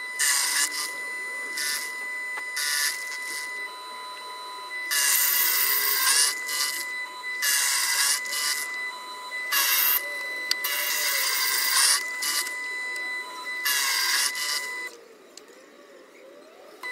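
Proxxon PF230 mill/drill head running with a steady high whine while its end mill cuts a pocket into a scrap-metal tool-holder blank. The cutting comes in irregular loud bursts as the work is fed into the cutter, and the cutting and whine drop away about two seconds before the end.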